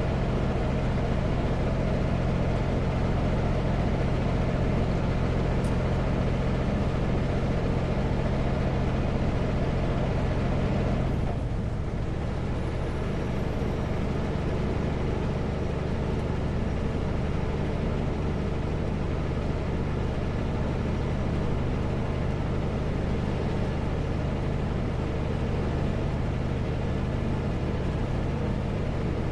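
Kenworth W900L semi truck's diesel engine running steadily at highway speed, with hiss from the tyres on a wet road. About eleven seconds in the engine note briefly dips, then settles lower.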